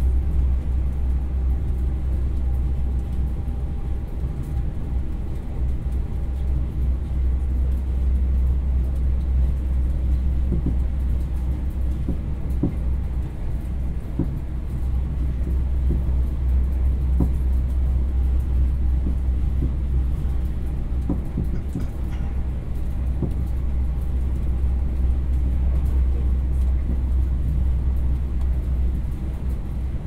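Train interior on board a moving carriage: a steady low rumble of the running train, with light knocks and rattles now and then.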